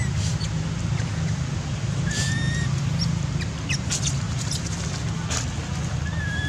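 Two short, level whistled animal calls, one about two seconds in and one near the end, over a steady low hum, with scattered faint high ticks.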